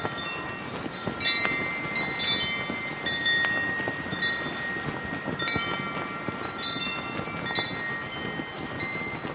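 Brass wind chimes ringing, a burst of several notes struck every second or two, over the steady rush of heavy wind and the crackle of a flag flapping.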